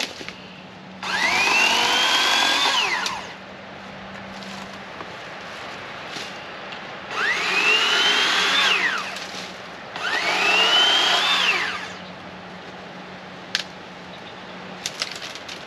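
Master Force 80-volt cordless chainsaw run three times in short bursts, each a whine that rises as the motor spins up and drops away when the trigger is released.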